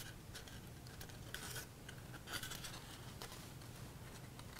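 Faint rustling and scraping of cardstock being handled and pressed together as a glued tab is set into place, with a few short scratchy rustles.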